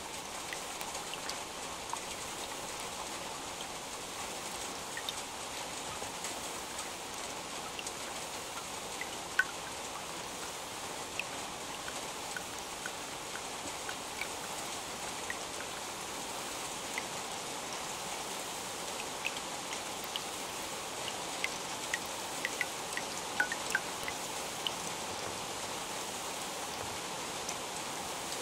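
Steady rain falling, a continuous hiss with scattered single drops ticking at irregular moments. The loudest drop lands about nine seconds in, and a small cluster comes near the end.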